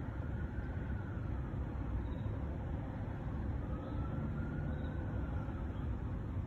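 Steady low rumble of distant city traffic, with a faint whine that slowly rises and falls twice.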